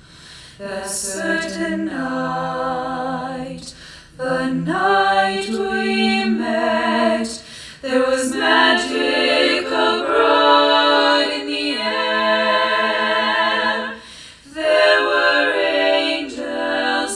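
A cappella vocal ensemble singing a jazz arrangement in close harmony, with several voices stacked in sustained chords. The phrases break off briefly about 4, 7.5 and 14 seconds in.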